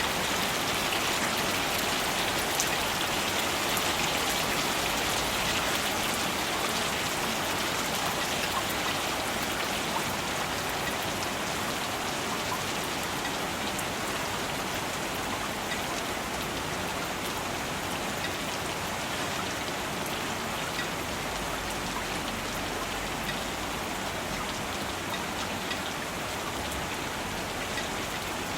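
Steady rain falling and pattering on surfaces, with many small drop ticks in a continuous hiss.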